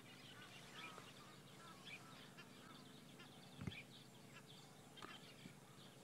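Faint wild birdsong: many small chirps and twitters from several birds, with one soft low thump about halfway through.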